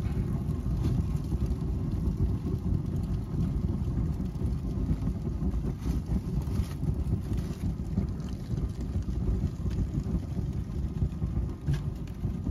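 Open fire burning paper and bags in a fireplace: a steady low rush of flame with a few sharp crackles scattered through it.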